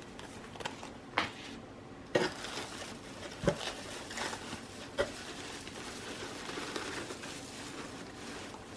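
Packaging being handled during an unboxing: rustling and crinkling of wrapping, with four light knocks as things are picked up and set down.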